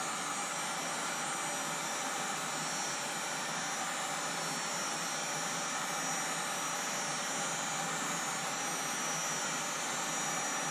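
Gas torch flame burning with a steady roaring hiss, heating the crank bolt to loosen its thread locker.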